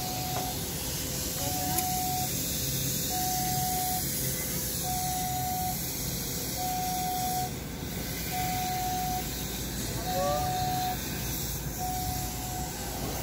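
Steady running noise of a train heard from on board, with an electronic warning beep on one steady tone repeating about every second and three quarters, each beep nearly a second long. A brief rising squeak comes about ten seconds in.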